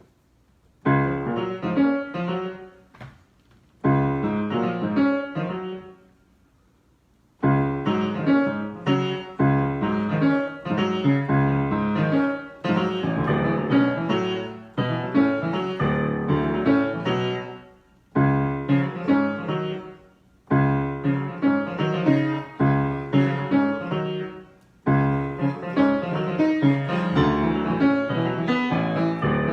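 Solo piano improvising in short phrases, starting about a second in, with a longer pause around six seconds in before it plays on more continuously.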